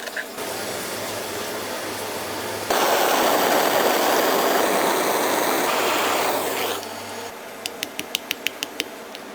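Food sizzling on a hot griddle, with a loud burst of hissing steam starting suddenly about three seconds in and lasting about four seconds, then a quick run of about eight sharp clicks near the end.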